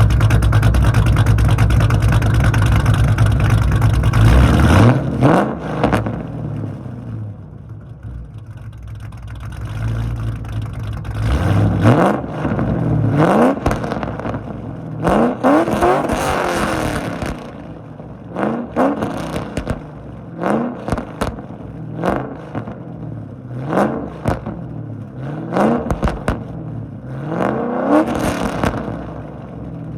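Cammed Ford 4.6L three-valve V8 of an S197 Mustang GT running loud and steady for the first few seconds, then revved in about a dozen quick blips, each a short rising note that falls back. Sharp crackles come between the blips.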